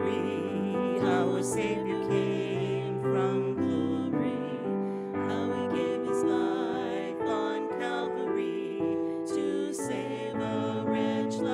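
A hymn sung by a woman's voice with vibrato, accompanied by sustained chords on an electronic keyboard.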